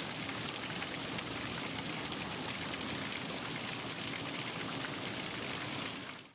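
Steady rain falling, an even hiss of many drops, fading out near the end.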